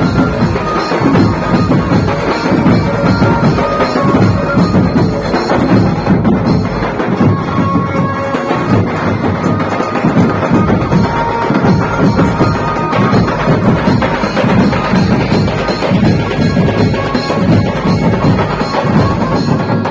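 Loud dhumal band music with driving drums and percussion, played through a large sound system.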